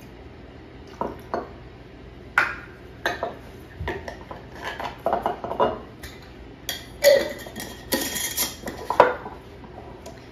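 Glassware and bar tools clinking and knocking on a kitchen countertop: bottles, a small measuring jigger and a jar picked up and set down while pouring a cocktail. A few single knocks come first, then a denser run of clinks and clatter.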